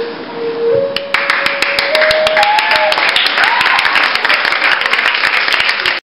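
Audience clapping and applauding, starting about a second in as a last held sung note fades, with a few voices calling out over the clapping; it cuts off abruptly near the end.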